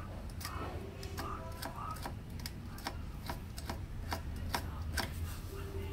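Metal hand tool clicking against the battery terminal screws of a UPS battery pack as they are worked loose: a series of sharp, irregular clicks, two or three a second.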